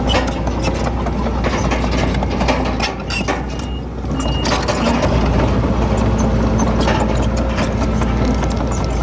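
Komatsu D31PX crawler bulldozer's diesel engine running steadily, with irregular clanks and knocks on top; it eases off briefly about three seconds in.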